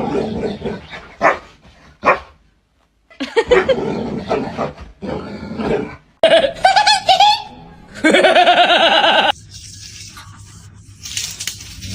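A dog barking and vocalizing in several short bursts, with people laughing.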